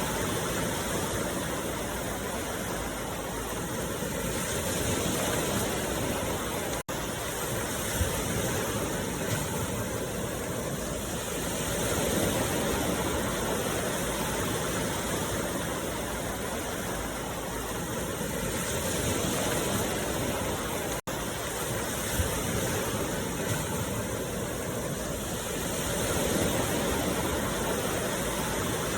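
Steady rushing noise for meditation that swells and ebbs slowly, roughly every seven seconds, with two very brief dropouts, about seven and about twenty-one seconds in.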